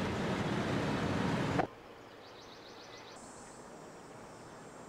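Classic cars' engines running as they roll past in a procession, a steady rumble with hiss, which cuts off abruptly about a second and a half in. Quiet outdoor ambience follows, with faint high-pitched insect chirring.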